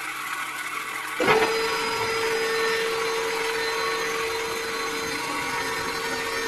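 Small hobby DC motor on a homemade toy drilling rig running. It picks up about a second in and then holds a steady whine.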